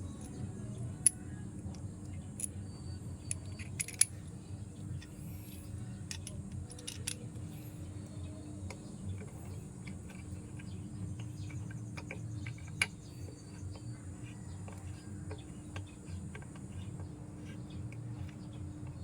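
Hand tools and metal parts clinking: scattered light metallic clicks, a few sharper ones about a second, four seconds and thirteen seconds in, over a steady low hum.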